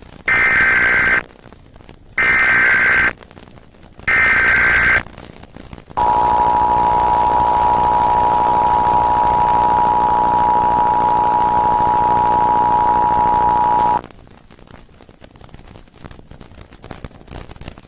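Emergency Alert System test signal: three one-second bursts of SAME digital header data tones, evenly spaced about a second apart, followed by the steady two-tone EAS attention signal lasting about eight seconds, which cuts off abruptly.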